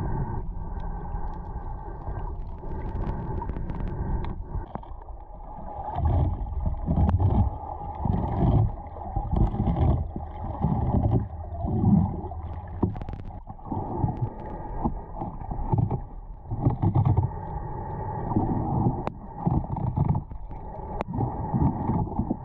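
Muffled underwater sound heard through a camera underwater: irregular low surges of moving water every second or so as the swimmer moves, over a steady hum, with a few sharp clicks.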